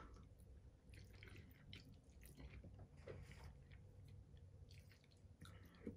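Faint chewing of a mouthful of sauced egg noodles, with a few soft clicks scattered through; otherwise near silence.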